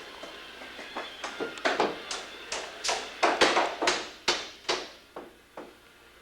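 A quick, irregular series of sharp taps and knocks, a dozen or more over a few seconds, each with a short ringing tail, thinning out near the end.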